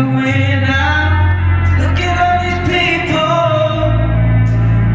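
Recorded song with a singer's melody over a heavy, steady bass, played through stage speakers as dance music.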